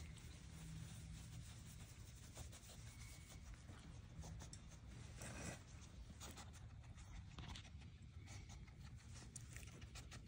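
Faint rubbing and light scratching close by, from a hand stroking a skunk's fur as it noses around its food bowl, with a slightly louder rustle about halfway through.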